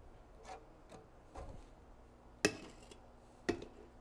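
Scattered knocks and clatters of tools and materials being handled on a workbench: a trowel, a tub of modified roofing mastic and a sheet-metal scupper flashing. The loudest knock comes about two and a half seconds in, and another a second later.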